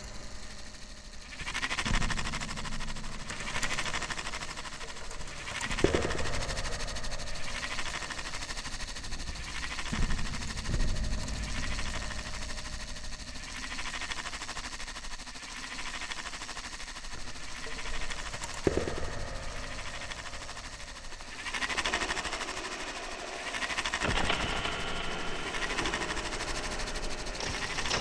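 Noisy electronic drone music from a Eurorack modular synthesizer running several noisy patches, layered with found-sound samples played from an iPad. The texture pulses about every two seconds, with occasional low thuds, and grows louder near the end.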